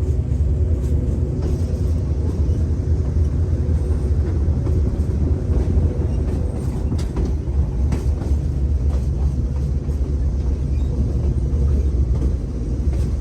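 Passenger train rolling along the track, heard from aboard: a steady low rumble with scattered clicks and rattles.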